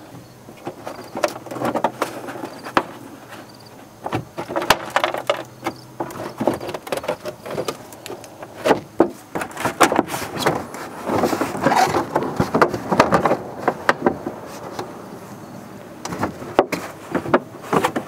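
Plastic front wheel-well fender liner creaking and scraping as it is bent and pulled down by hand, in irregular spells with a few sharp clicks. The liner is still held by clips and screws that don't pop out easily, so it is being forced.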